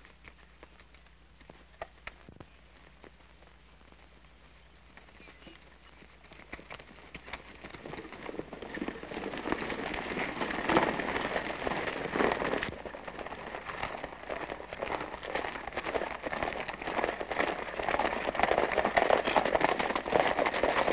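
Hoofbeats of a group of horses galloping on dirt: a dense, rapid clatter that builds about eight seconds in and grows louder toward the end. Before that there is only a low hum with a few scattered knocks.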